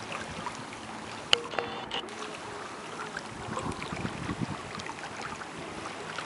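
Water rushing and splashing along a sailboat's hull as it sails, as an even wash of noise with small scattered ticks. A single sharp click comes a little over a second in.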